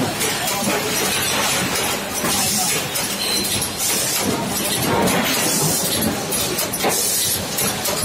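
Cimtrix automatic armature slot-insulation inserter running: pneumatic cylinders clacking as armatures are indexed into the inserting head, with repeated short bursts of air hiss.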